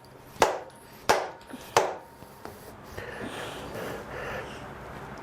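Hammer striking the stuck cylinder head of a 350 Chevy small-block, three hard blows about two-thirds of a second apart, to break the head loose from the block.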